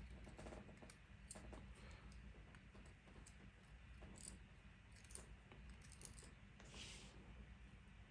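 Faint, scattered small metallic clicks and clinks of a pin-tumbler lock's tiny pins and springs being handled and taken out of the lock.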